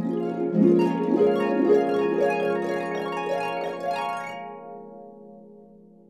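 Harp playing a quick flurry of plucked notes for about four seconds, after which the strings ring on and fade away.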